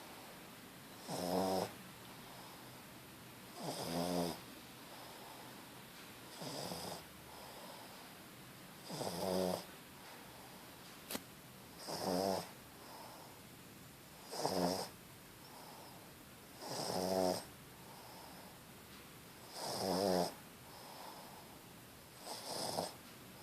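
Sleeping pug snoring: a buzzy snore on each breath, about every two and a half seconds, nine in all, with faint breathing between.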